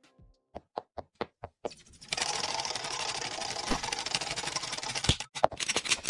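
Cartoon sound effects for an animated logo. First comes a string of sharp clicks, then a fast mechanical clatter for about three seconds, then a few more clicks near the end.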